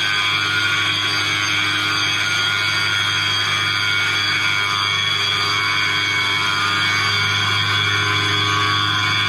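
Workshop machine tool running steadily under power, a constant hum with a gearbox whine of many steady high tones.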